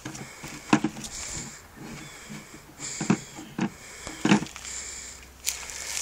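Several short handling noises, scrapes and knocks, as hands work a taped bundle of sparklers into the hood of a plastic toy ride-on tractor.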